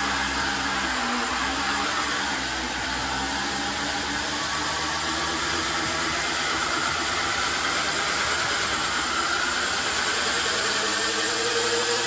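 Razor MX650 electric dirt bike, overvolted to 48 V, held at full throttle against the front brake in a burnout: its motor and chain drive whine with a pitch that slowly climbs, over a steady hiss of the rear tyre spinning on the concrete floor.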